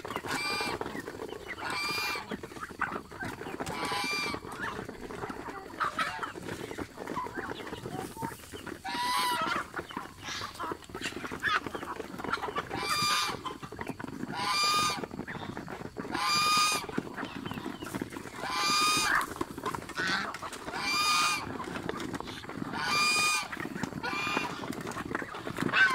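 Domestic goose honking over and over, one short call about every two seconds, while the flock feeds.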